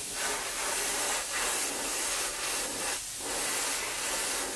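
Airbrush spraying paint onto a soft-plastic bait: a steady hiss that cuts out briefly about a second in and again about three seconds in, opened up wider for broader coverage.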